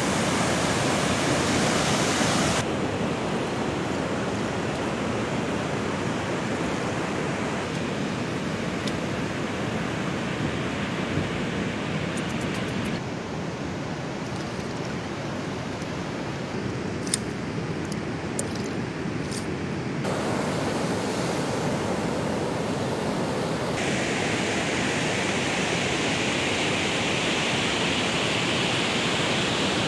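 Sea surf and wind on a beach: a steady rushing noise whose tone shifts abruptly at several cuts, with a few small clicks in the middle.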